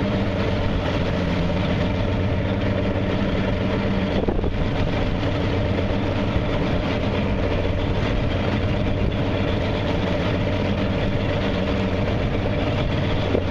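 A fishing boat's engine running steadily at low speed, a constant low hum.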